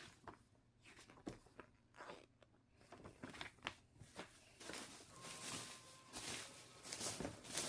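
Packaging being handled and unwrapped: irregular crinkling and rustling with light knocks.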